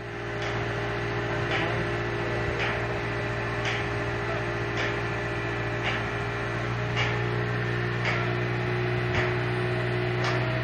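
A steady machine hum with a short tick repeating about once every second.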